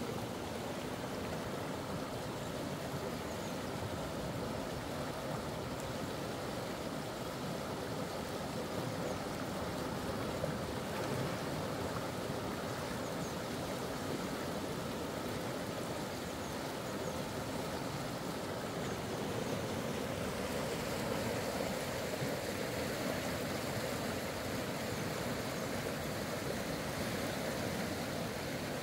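River water flowing steadily, a constant rushing noise.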